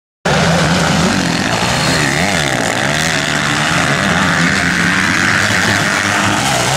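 Several motocross bikes revving through a dirt corner, their engine notes overlapping and rising and falling as the riders work the throttle. There is a split-second dropout at the very start.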